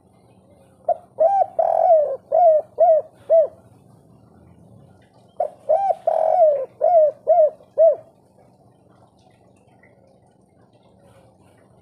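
Spotted dove cooing two song phrases. Each phrase has a short note, a longer coo and then three short hooked 'kuk' notes, the three-ending 'kuk 3' song type.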